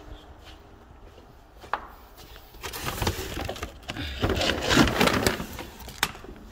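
Plastic bags being handled, rustling and crinkling. The sound starts about halfway through, is loudest near the end, and has a couple of sharp clicks.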